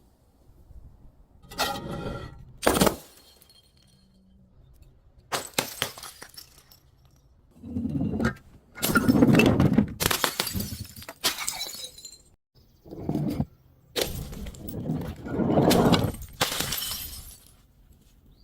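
Glass bottles breaking one after another: a series of sudden crashes with quiet gaps between, several of them trailing off in a longer clatter of shards.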